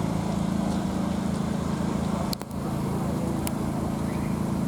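An engine idling steadily: a low, even hum with a regular pulsing beat. A sharp click with a brief drop in level about halfway through.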